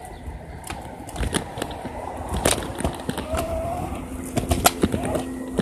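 Kick scooter rolling over a concrete sidewalk, its wheels and frame giving off irregular clicks and rattles over the pavement, with a few short squeaky chirps in between.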